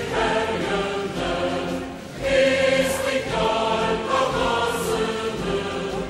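A large group of voices singing a song together, with a short dip in loudness about two seconds in before the singing swells again.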